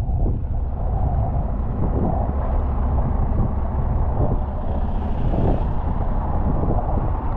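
Steady low rumble of idling diesel semi trucks, with a brief hiss about five seconds in.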